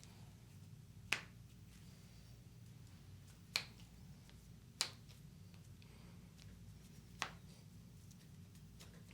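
Four sharp joint pops, or cracks, from manual chiropractic adjustments, each single and short, spread irregularly over several seconds.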